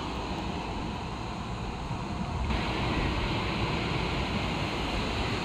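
Steady rush of sea surf and wind, with a low rumble of wind on the microphone; it grows a little brighter about two and a half seconds in.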